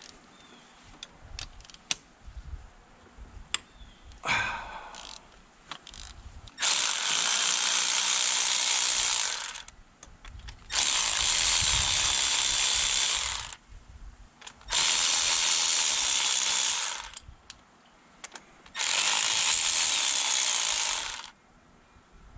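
Power tool run in four bursts of about three seconds each, backing out the four cylinder head studs of a motorbike engine. Light clicks and tool handling come before the first burst.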